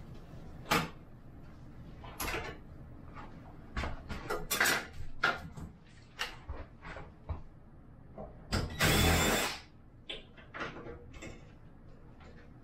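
Scattered clicks and knocks of tools and parts being handled during light-fixture installation, with one louder burst lasting about a second near nine seconds in.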